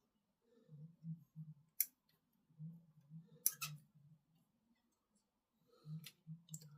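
A few sharp clicks and taps from small plastic model parts and tools being handled at a workbench, over a faint low pulsing sound.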